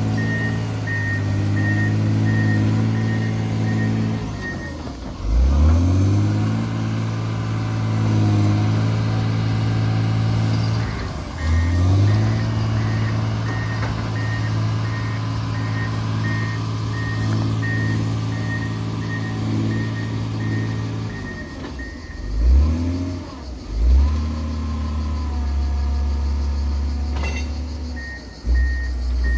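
John Deere motor grader's diesel engine working, its pitch dropping and climbing again several times as the machine changes speed and direction. A reversing alarm beeps steadily for the first few seconds and again near the end.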